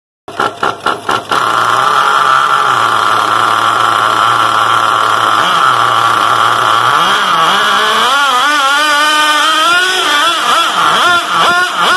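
XTM 457 4.57 cc nitro engine in a T-Maxx monster truck: a few quick bursts, then running steadily at a high, buzzy idle. From about seven seconds in it is revved up and down over and over.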